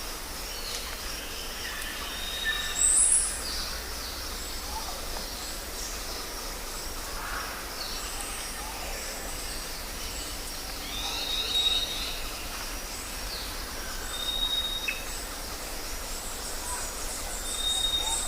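Jungle ambience: several birds calling over a steady hiss of insects and forest noise, with a loud, very high call about three seconds in and short level whistles repeating every few seconds.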